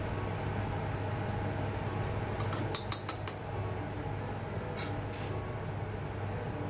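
A metal ladle clinking against a wok as a curry is stirred: a quick run of clicks about two and a half to three and a half seconds in and a couple more around five seconds, over a steady low kitchen hum.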